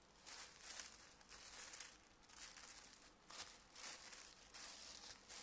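Faint crinkling of a thin clear plastic sheet as hands smooth and reposition it, in short uneven bursts.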